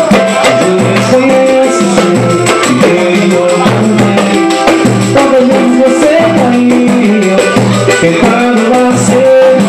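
Samba music played live: cavaquinho strumming chords over a quick, even percussion beat.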